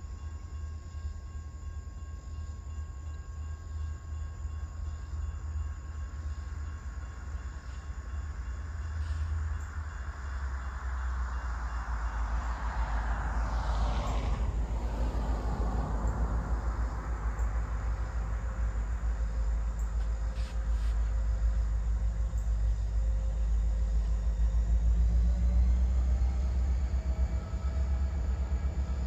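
A CSX SD40-2's EMD 16-cylinder two-stroke diesel approaching, a low rumble that grows steadily louder. About halfway through, a broad whoosh of noise swells and fades over it.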